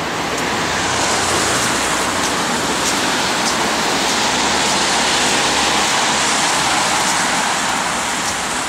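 Street traffic: a vehicle passing close by. Its road noise swells to a peak about halfway through and then fades away.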